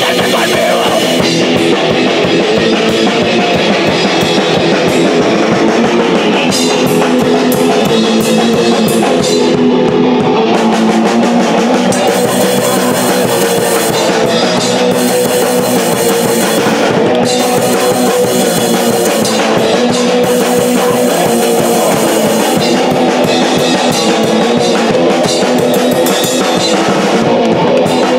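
Live punk rock band playing: electric guitar over a drum kit with crashing cymbals, at a steady loud level.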